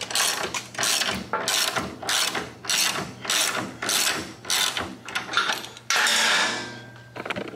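Ratchet wrench cranking the screw of a flat motorcycle jack, clicking in even strokes about two to three times a second as the jack lifts the motorcycle. A louder noise about six seconds in fades over about a second.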